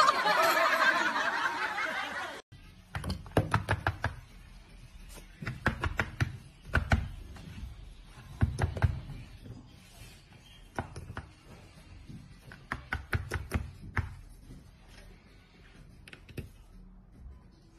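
People's voices for the first two seconds or so, cut off sharply. Then a cat's paw batting a small metal cat-food can on a tabletop: light knocks and taps in quick clusters every second or two, until the can tips over.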